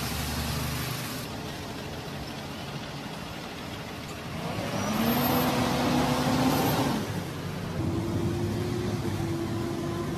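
School bus engine running, rising in pitch about halfway through as it revs up, then holding a steady note.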